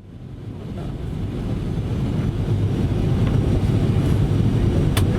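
An airplane landing: a steady, deep rumble that fades in over the first couple of seconds and then holds, with a single sharp click near the end.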